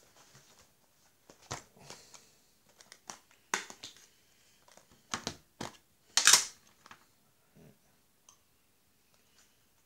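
Small metal tin being handled and its lid opened: a string of separate clicks and taps, the loudest a brief scrape about six seconds in.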